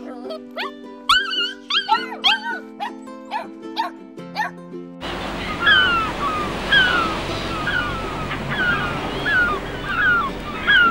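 Soft background music with a dachshund puppy's high, bending yips and whines over the first few seconds. After about five seconds, sea surf and a flock of terns and gulls calling, a short falling squawk repeated roughly every two-thirds of a second.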